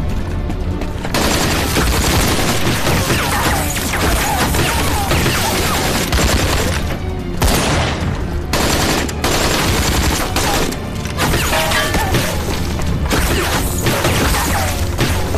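Heavy, sustained gunfire: many rifle and machine-gun shots overlapping in dense volleys, with a couple of brief lulls, over a dramatic film music score.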